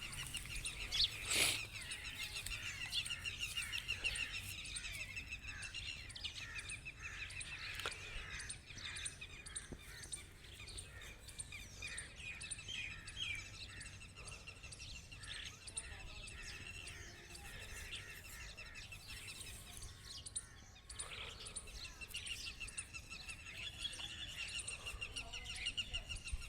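Many small birds chirping and twittering continuously. There is one sharp knock about a second and a half in.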